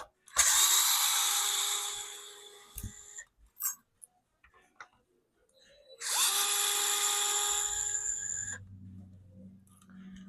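Electric screwdriver running twice, each time for about two to three seconds with a steady whine, backing out small screws.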